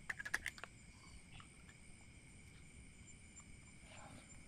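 Steady high-pitched chirring of night insects such as crickets, with a few sharp clicks and rustles in the first second.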